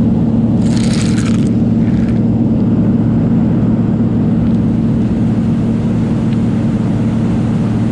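Heavy farm machinery running steadily with a loud, even low hum, with a brief hiss about a second in.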